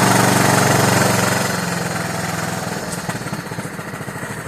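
1976 John Deere 300 riding mower's engine running after a dead-battery spring start; about a second and a half in it drops in speed and loudness and settles into a slower, uneven beat.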